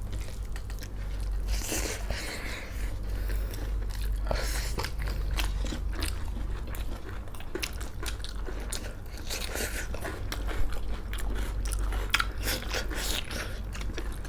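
Close-miked chewing and biting of food, with many small crisp crunches, over a low steady hum.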